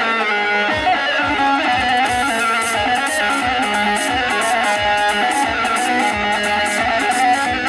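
Dance music: a plucked string instrument plays a winding melody over a steady, repeating drum beat.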